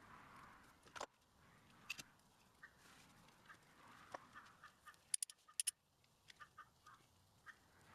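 Near silence: faint room tone with a few short, scattered clicks and brief faint chirps.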